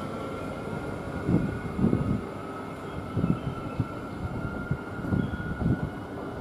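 Siemens Nexas electric multiple unit pulling slowly into the platform: a steady high whine over a low running rumble, broken by several irregular louder low thumps.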